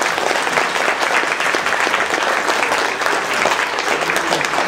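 Congregation applauding: many hands clapping in a steady, dense patter.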